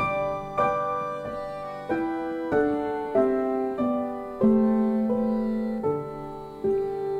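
Background piano music: a slow melody of single struck notes with chords, each note fading before the next.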